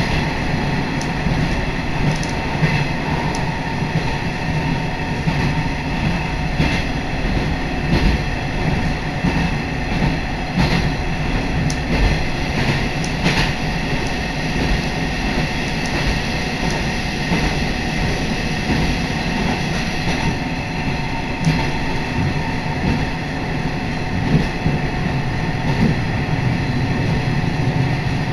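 Inside a moving diesel railcar: the steady rumble of the engine and wheels at speed, with scattered short clicks from the track.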